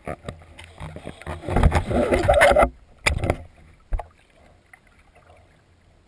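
Pool water churning and splashing around a submerged camera, heard muffled from underwater, loudest for about a second in the middle. A couple of sharp knocks follow, and then only quieter water movement.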